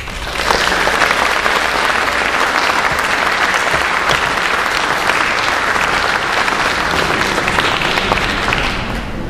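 An audience applauding, a dense steady clapping that starts just after the beginning and eases off near the end.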